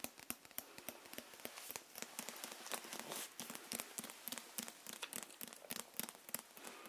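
Fingers handling and tapping a Japanese accent dictionary held close to the microphones: a dense run of quick crinkles and light taps on its cover.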